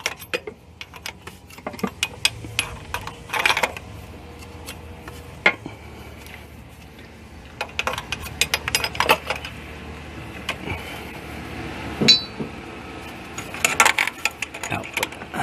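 Open-end wrench clicking and clinking against the -6AN braided-hose fitting as it is tightened on the H22 engine: scattered sharp metallic taps, with one brief ringing clink about twelve seconds in.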